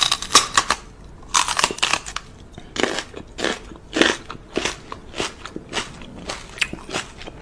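A pet chewing crunchy food, a steady run of crisp crunches about two a second.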